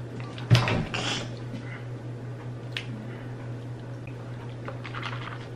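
Water drunk straight from a large plastic water jug: a sharp crack of the jug about half a second in, then sloshing and swallowing, with a small click near three seconds.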